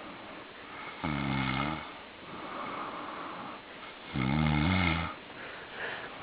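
A man snoring in his sleep: two loud, low snores about three seconds apart, each under a second long, with a softer breath between them.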